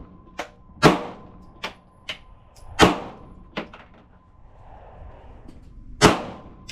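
Gunshots at an outdoor shooting range: three loud shots, about a second in, near three seconds and about six seconds in, with several fainter shots between them. A faint steady ring holds through the first few seconds.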